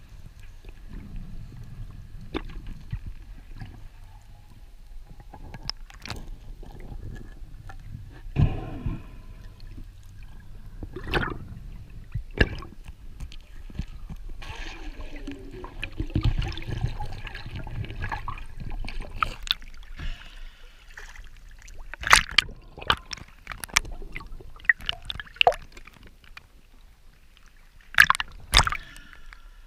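Muffled underwater water noise through an action-camera housing, with scattered knocks and clicks as the diver swims up with a speared fish. Near the end there are a couple of sharp splashes as the camera breaks the surface.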